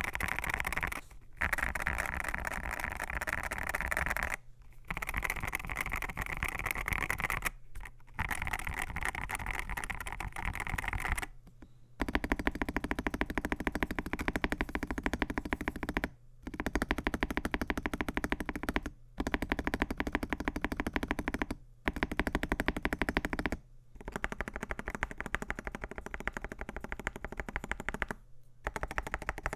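Fast typing on a gasket-mounted AKKO MU02 mechanical keyboard with lubed AKKO Rosewood switches, FR4 plate, PBT keycaps and a walnut wooden case. The rapid keystroke clatter comes in runs of a few seconds, broken by short pauses, and gets deeper in tone about halfway through.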